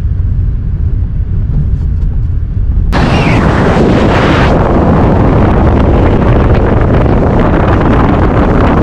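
Pickup truck driving. A steady low road rumble is heard from inside the cab, then about three seconds in it changes abruptly to loud wind rush and tyre noise on a microphone mounted outside the moving truck.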